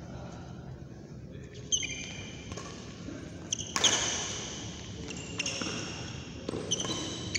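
Badminton rally: rackets striking the shuttlecock several times, about every two seconds, with short high-pitched squeaks of court shoes on the mat between the hits.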